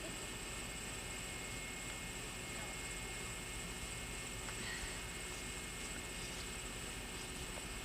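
Steady electrical hum with a constant hiss, unchanging throughout.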